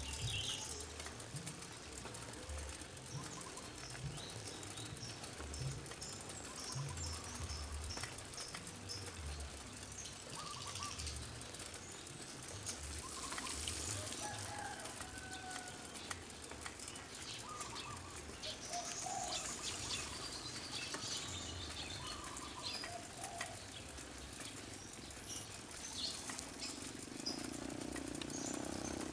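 Outdoor village ambience of birds chirping and calling in short, scattered calls, over soft, irregular low thuds of footsteps as someone walks.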